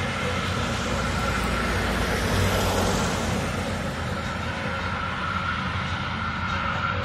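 Combined heat and power plant humming: a loud, steady roar with a high, even whistling tone running through it, swelling slightly a couple of seconds in.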